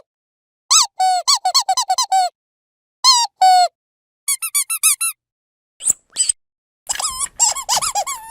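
Rubber dog squeaky toy squeezed repeatedly: a quick run of about eight short squeaks about a second in, two longer squeaks near 3 s, a run of higher, thinner squeaks near 4.5 s, and a denser, rougher flurry of squeaks from about 7 s.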